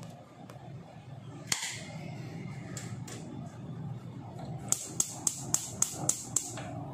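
Gas hob's spark igniter clicking about seven times in quick succession, roughly four clicks a second, as the burner knob is turned to light the burner. A single sharp knock comes earlier, about a second and a half in.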